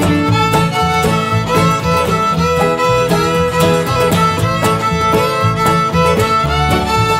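Instrumental break of a folk song: fiddle lead with sliding notes over guitar and a steady beat.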